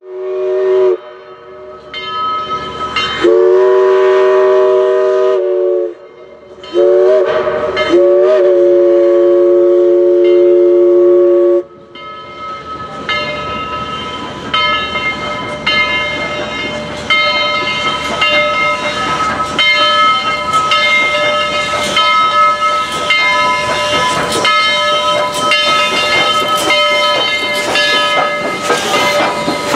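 Southern Railway 4501, a Baldwin-built 2-8-2 steam locomotive, blowing its steam whistle, a chord of several notes, in three blasts: a short one, a longer one, and a long final one. The locomotive then approaches and passes with its bell ringing in even strikes about once a second over the running noise of the train.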